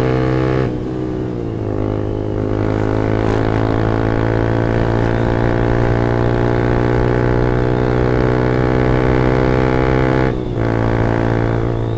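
Yamaha R15 V2's 150 cc single-cylinder engine running through a Pro Liner racing exhaust, pulling under steady acceleration with a slowly rising pitch. The note briefly drops and breaks about a second in and again near the end.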